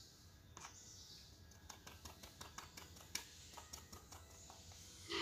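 Faint, scattered light clicks and scratches of a spoon working flour through a wire-mesh sieve while sifting.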